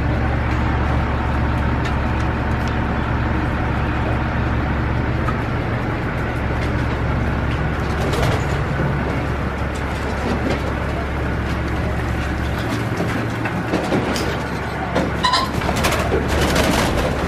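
A steady low mechanical hum runs throughout, easing in its lowest part about two-thirds of the way in. A few short calls from penned ring-necked pheasants come near the end.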